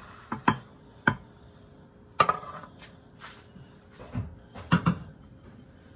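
Frying pan and spatula knocking against a ceramic plate as a cooked omelette is slid out of the pan. About seven sharp clinks and knocks come at irregular intervals; the loudest, about two seconds in, rings briefly, and a quick pair comes near the end.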